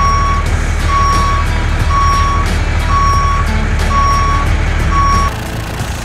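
Vehicle reversing alarm beeping six times, about once a second, over a steady low engine rumble. It stops a little past five seconds in.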